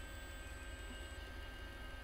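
Faint steady low hum with an even hiss and a few thin steady high tones: background electrical hum and room tone, with no distinct event.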